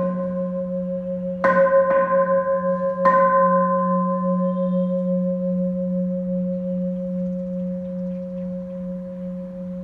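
Buddhist temple bell struck twice, about a second and a half apart. Its low hum and several higher ringing tones sustain and slowly fade.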